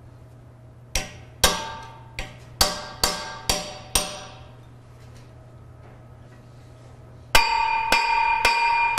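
Hammer striking a steel chisel driven into the rusted joint of a robot arm, to break the rust and free the arm. Seven sharp, ringing blows in the first four seconds, a pause, then a louder run of blows about two a second near the end, with the metal ringing on in a clear tone between them.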